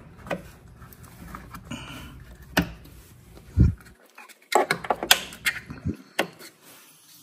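Clicks and knocks of the caster wheel locks on an EcoFlow Delta Pro Ultra being pressed into place by hand, with a heavy low thump about three and a half seconds in and a quick run of sharp clicks around five seconds in.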